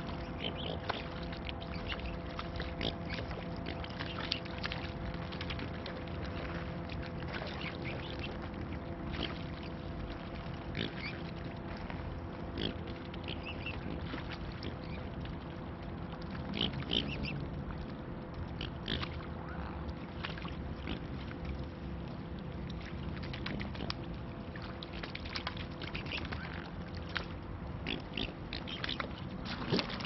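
Mute swans feeding in the shallows: water splashing and bill-dabbling heard as many short clicks and slaps, with a few brief grunting calls, over a steady low hum.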